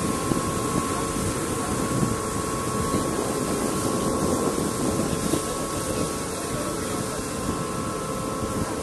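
River boat under way: a steady engine drone with a constant whine, over the wash of water along the hull.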